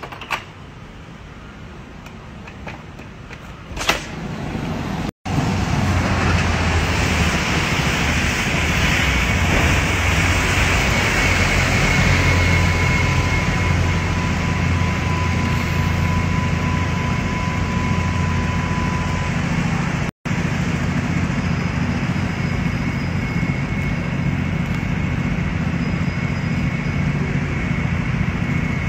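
Road traffic on a wet street: a steady engine rumble with the hiss of tyres on the road. In the first few seconds, before it, a couple of sharp clicks from a door handle.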